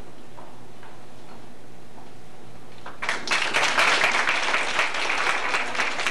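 Audience clapping, breaking out about halfway through after a few seconds of steady low hum with a few faint taps.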